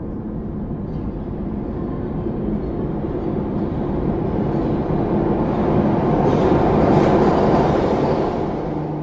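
Intro-sting sound effect: a dense, rushing rumble with a low drone underneath, swelling steadily to a peak about seven seconds in and then easing off.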